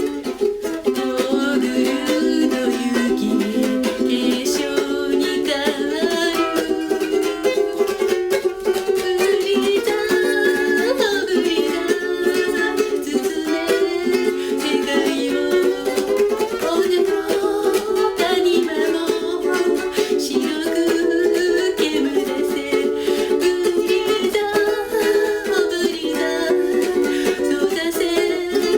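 Ukulele playing chords, with a voice singing along over it.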